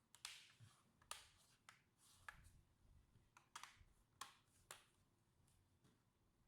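Faint, sharp clicks and taps of laptop parts being handled during a RAM upgrade, about eight of them, unevenly spaced.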